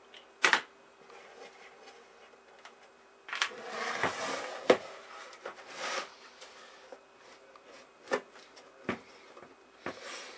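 Handling noise from the case of an RCA WT-509A picture tube tester on a workbench: a sharp click about half a second in, a couple of seconds of scraping and rustling as the case is turned over, then a few scattered knocks.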